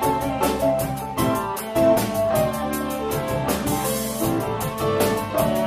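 Live rock band playing an instrumental passage, with a steady drum-kit beat under electric guitar and other sustained pitched notes.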